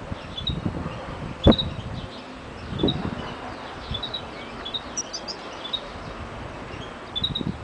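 European goldfinch calling in short, high chirps about once a second, with a brief higher twittering run about five seconds in. Low thumps throughout and a single sharp knock about a second and a half in.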